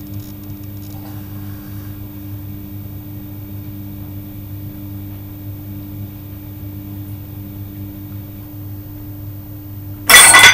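A steady low hum, then about ten seconds in a single loud metallic clang with a bright ring as an iron weight plate strikes the other plates.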